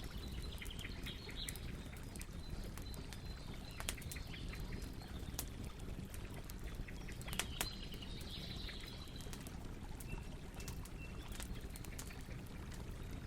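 Campfire crackling, with scattered sharp pops over a steady low noise, while small birds chirp in the background, most clearly early on and about halfway through.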